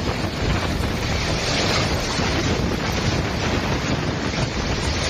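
Strong wind buffeting the microphone over a steady hiss of hail and heavy rain hitting the street, with no letup.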